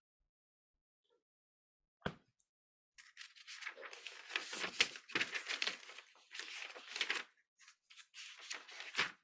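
A single click, then several seconds of irregular rustling and crinkling close to the microphone, like paper being handled.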